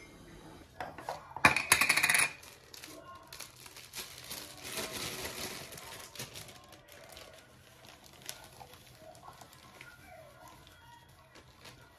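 A brief loud clatter about a second and a half in, then the crinkle and rustle of a plastic bag as red ground spice is poured from it into a small clear plastic spice jar.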